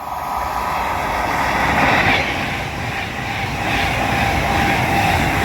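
A passenger train coming in alongside the platform, close by: a loud, continuous rumble of wheels on the track that swells over the first two seconds and then holds.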